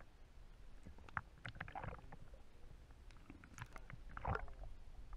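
Muffled low rumble of sea water heard through an underwater camera housing, with a few dull knocks and short sloshing swells.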